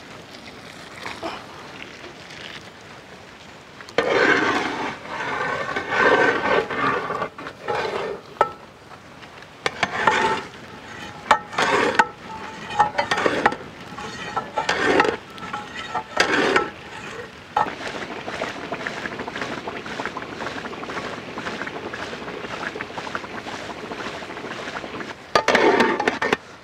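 Boiled milk pouring into a large uruli of grated carrots cooking in ghee. Then long-handled paddles stir in irregular strokes, scraping the carrot mass against the metal pot, worked constantly so the halwa does not stick to the bottom.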